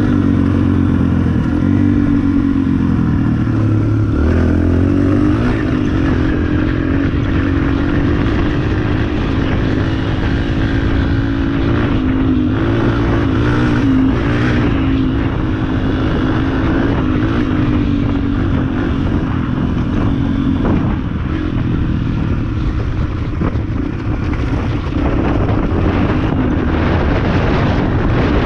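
Yamaha dirt bike engine running under way along a dirt trail, its note holding fairly steady with small rises and dips in pitch, mixed with wind rush on the bike-mounted microphone.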